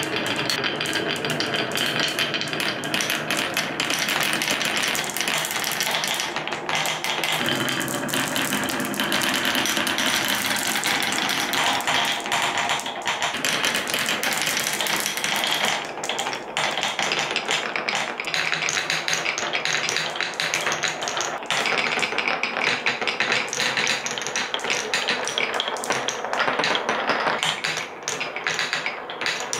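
Many glass marbles rolling and bumping down wooden marble-run tracks: a continuous dense clatter of small clicks as marbles knock against each other and the wooden blocks.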